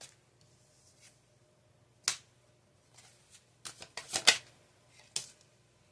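Tarot cards being shuffled and handled: a few sharp card flicks and slaps, with the loudest cluster just past four seconds.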